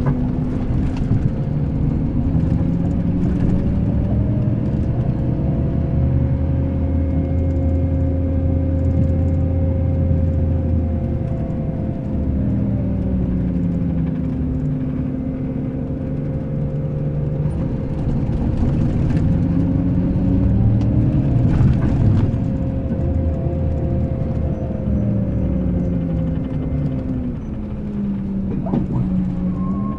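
Scania K380 coach's diesel engine running on the road, its note dipping and rising again several times as the coach slows and picks up speed. A steady whine runs alongside it.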